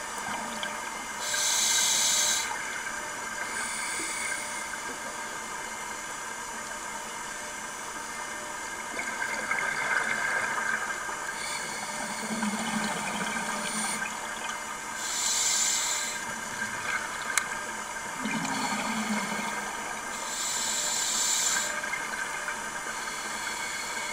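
Underwater sound of scuba breathing: a scuba regulator's exhaled bubbles rushing out in bursts of about a second, three times clearly and more faintly between, over a steady underwater hiss, with a few low gurgles.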